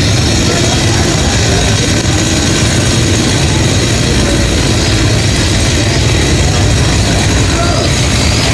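Chainsaw running steadily.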